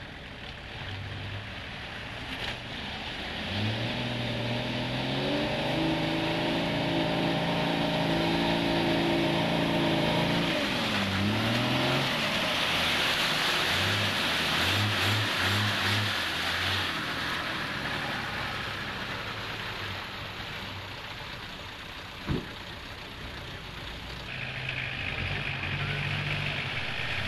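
Land Rover Defender driving through a muddy water hole, with water and mud splashing. The engine revs up and holds for several seconds, then gives a few short throttle blips, and there is one sharp knock near the end.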